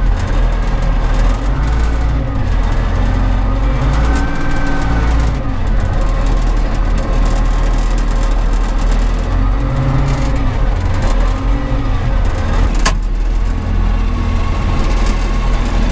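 Wheel loader's diesel engine running under load, its pitch rising and falling, with a hydraulic whine gliding up and down as it drags a dead skid steer on its bucket. One sharp click near the end.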